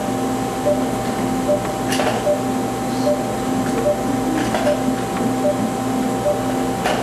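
Operating-room equipment tones: a short beep about every 0.8 s, roughly 75 a minute, like a patient monitor sounding each heartbeat, over a steady electronic hum and a lower tone pulsing on and off. A few faint clicks.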